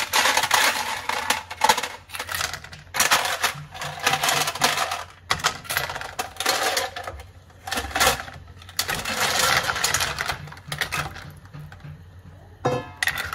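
Spotted babylon snail shells clattering against a stainless steel bowl and pot as they are tipped and scraped out with a ladle into a pot of water. The clatter comes in several bursts of dense clicks and thins out near the end.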